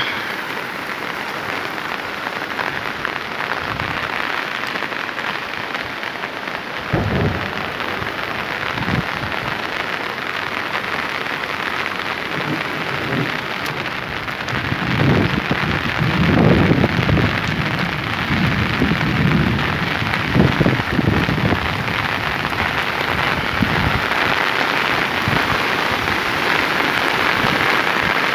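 Steady rain falling, a constant dense hiss, with irregular low rumbles that come and go, mostly through the middle.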